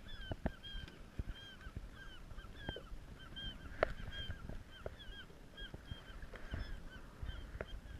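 A seagull tangled in fishing line calling over and over, short sharp cries about three a second that fade near the end. A few sharp knocks come in between.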